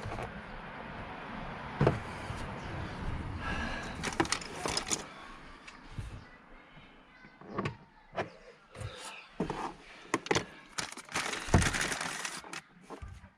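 Trim tool prying at the plastic door card of a Fiat 500's passenger door: scraping with irregular sharp clicks and knocks as the panel and its retaining clips are worked loose, the card resisting.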